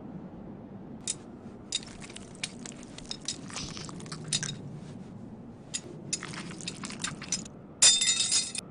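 Anime sound effects of black metal rods being pulled one after another out of a body: a string of short wet squelching and scraping pulls, then a louder, brief metallic clatter near the end.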